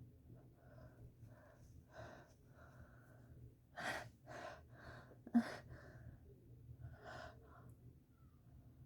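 A person's short, sharp gasping breaths, several in a row, with one forceful sneeze about five seconds in, the loudest moment.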